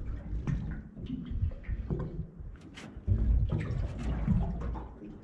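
Water sloshing and splashing against the side of a small boat, with scattered knocks and handling noise, as a hooked gurnard is reeled to the surface and brought aboard.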